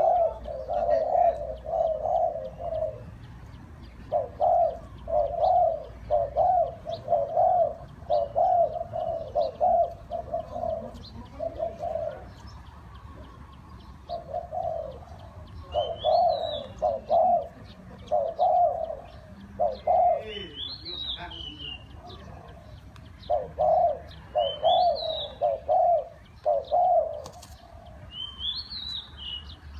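Spotted doves cooing in repeated phrases: runs of several low, mellow coos broken by short pauses. A higher chirping call from another bird comes four times over them in the second half.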